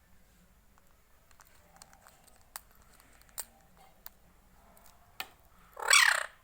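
Ringneck parrot: a few sharp clicks in a quiet room, then one loud, harsh squawk lasting about half a second near the end.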